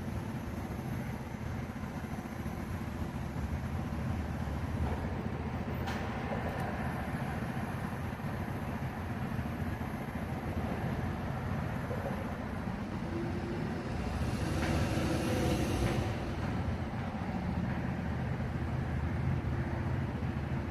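Heavy engines running with a steady low rumble, swelling louder for a couple of seconds about two-thirds of the way through.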